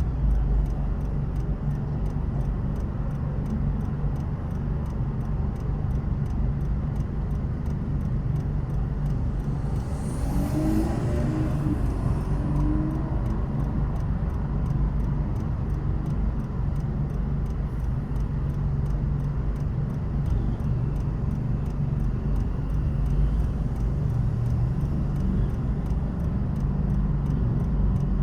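A car driving through city traffic, with a steady low road and engine rumble. About ten seconds in comes a louder hiss lasting a couple of seconds, with a brief higher-pitched squeal in it.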